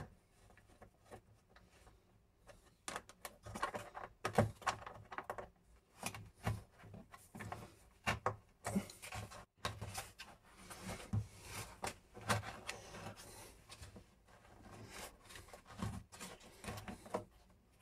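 Blue plastic flush-mount electrical box being pushed and worked into a tight hole in an old plaster wall, with a screwdriver at its fixing screws: irregular scraping, rubbing and clicking of plastic against plaster and metal, starting about three seconds in.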